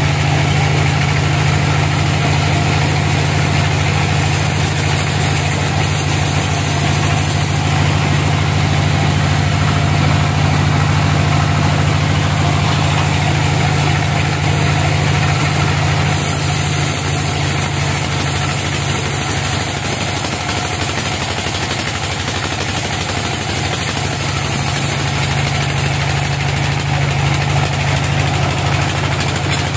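Band sawmill running steadily, a constant low machine drone with no breaks.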